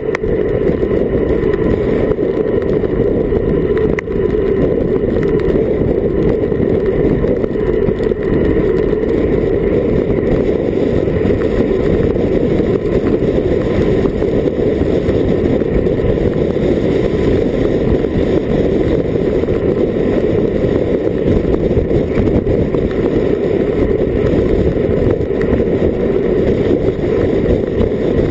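Steady, loud wind rumble on an action camera's microphone during a fast bicycle descent at about 40 km/h.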